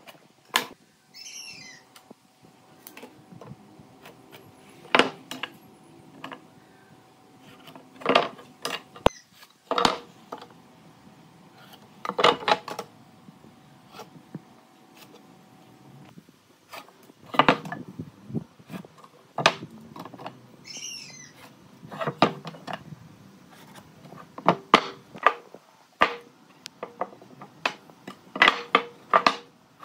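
Hand work on wood: irregular knocks, taps and short scraping strokes, with a bird chirping briefly twice in the background.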